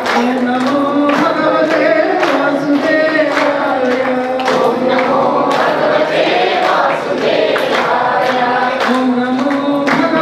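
A group singing a devotional song together, led by a woman's voice over a microphone, with steady hand clapping in time.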